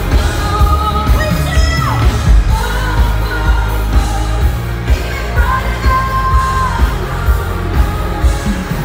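Live pop music played loud through a concert sound system: a voice holding and sliding between long sung notes over a band with a heavy, steady beat.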